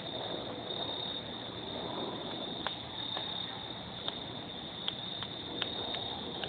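Wood fire crackling in a screened fire pit, with a run of about seven sharp pops and snaps through the second half. Underneath, a steady high chorus of crickets.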